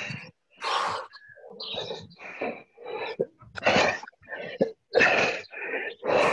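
Short, forceful breaths and grunts of exertion from people doing push-ups, one after another about every half second to a second, heard over a video call that cuts to silence between them.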